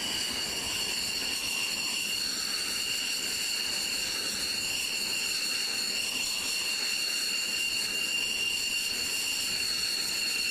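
X-47B's single Pratt & Whitney F100 turbofan idling on deck: a steady high-pitched whine over a rushing hiss.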